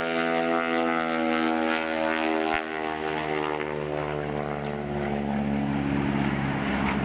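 Aerobatic biplane's piston engine and propeller droning steadily in flight, the pitch sliding gradually lower across the few seconds.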